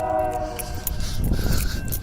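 A GE freight locomotive horn sounds a chord of several notes, cutting off a little under a second in. A short burst of rushing noise from the train follows, with light clicking throughout.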